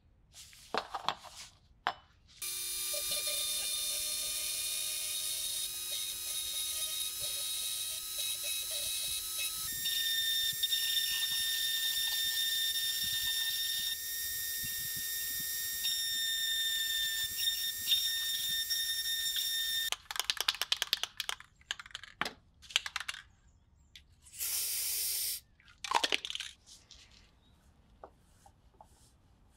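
Small handheld rotary tool with a fine pointed bit running at a steady whine, working the stamped lettering on a metal knife handle; its pitch steps to a new speed about ten seconds in, and it stops about two-thirds of the way through. Then come short scratching and scraping sounds, with a brief one-second run of the tool.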